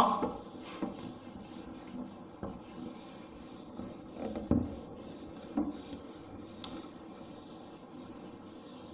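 Board duster scrubbing marker writing off a whiteboard in repeated back-and-forth strokes, with a few soft knocks, the loudest about four and a half seconds in.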